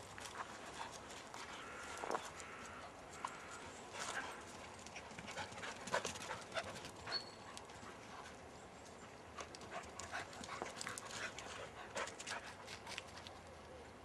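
Border collies moving about on a dry woodland path: a dog sniffing and breathing close by, with irregular crunching steps on the leaf litter.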